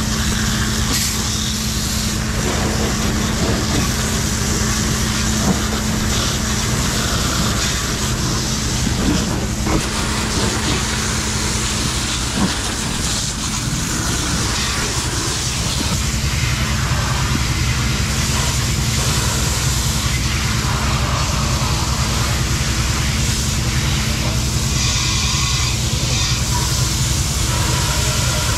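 Steady rushing hiss of a firefighter's hose nozzle spraying water at a shed fire, with a low steady hum underneath and a few light knocks.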